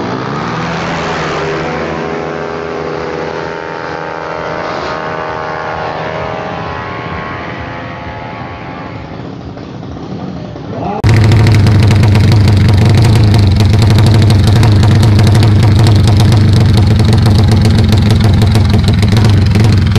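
A drag-racing motorcycle launches and accelerates away hard. Its engine note rises at the start and fades over about ten seconds. About eleven seconds in, the sound cuts abruptly to a much louder, steady low drone.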